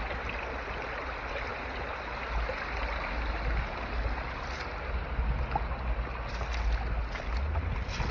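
Spring water running and splashing out from among the rocks at the base of a stone wall into a shallow stream, a steady rushing hiss. An uneven low rumble on the microphone rises and falls over it.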